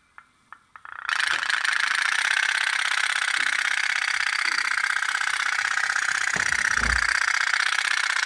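A few clicks, then a candle-heated toy pop-pop steamboat starts up and runs with a loud, steady, rapid putt-putt as its boiler diaphragm pulses, with a dull bump about seven seconds in.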